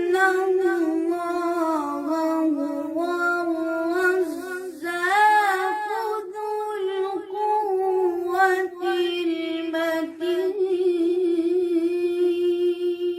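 A single voice singing unaccompanied, mostly long held notes with ornamented melodic turns.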